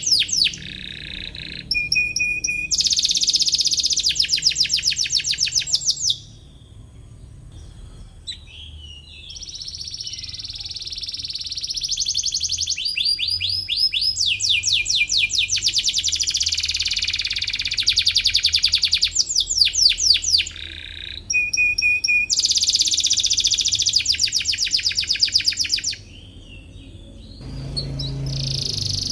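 Domestic canary singing loudly in long phrases of fast, high-pitched trills and repeated chirping notes, with short pauses between phrases.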